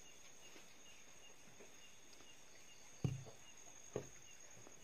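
Faint night insects: a steady high trill with a soft chirp repeating about three times a second. Two dull thumps a second apart stand out near the end.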